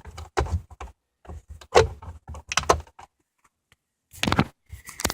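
Car dash parts being handled and fitted: a run of short, irregular knocks, clicks and rattles, with a brief pause and then a denser cluster of knocks near the end.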